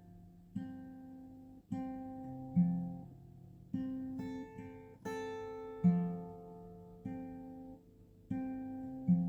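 Background music: an acoustic guitar picking slow, single notes and chords, each one ringing out and fading before the next, roughly one a second.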